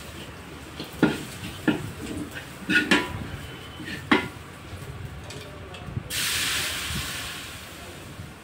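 Metal spoon stirring in a wide metal pan on a wood-fired stove, with several sharp knocks against the pan in the first few seconds. About six seconds in, a loud sizzling hiss of steam rises from the hot pan and fades over a second or so.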